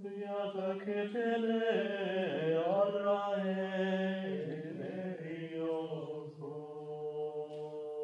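Mixed a cappella choir singing a Syrian-chant Orthodox Good Friday hymn: a melodic line with ornamented turns over a low held drone, settling into a sustained chord in the last second or so.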